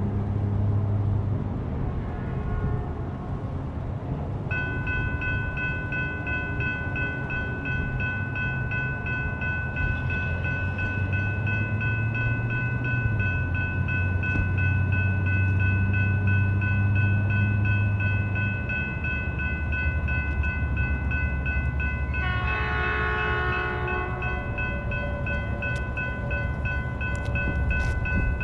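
Railroad crossing warning bells start ringing about four and a half seconds in as the signals activate, and ring on steadily. About 22 seconds in, the approaching Metrolink train sounds its horn briefly, over a low rumble of engines.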